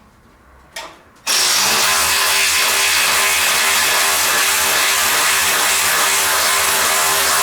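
A loud power tool starts up about a second in and runs steadily without a break.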